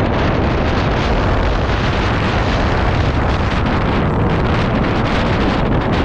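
Loud, steady wind buffeting on the microphone of a camera riding on a moving pit bike. No separate engine note stands out from the rush.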